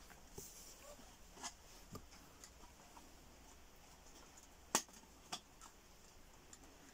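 A few faint, scattered clicks and ticks of a small screwdriver prying at the plastic clips and edge of a washing-machine control board to free it. The sharpest click comes a little under five seconds in, with another about half a second later.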